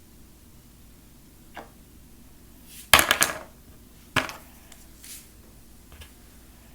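Plastic Play-Doh tools clattering: a short burst of sharp knocks and rattles about three seconds in, a single knock a second later, and a few faint taps.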